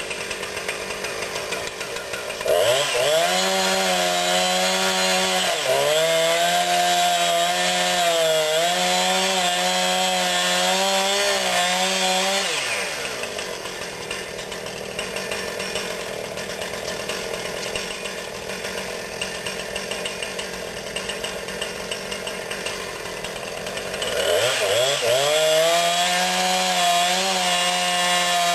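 Two-stroke chainsaw idling, then held at full throttle for about ten seconds, its pitch sagging and wavering as it cuts into the cedar trunk. It drops back to idle, then is revved up and cutting again near the end.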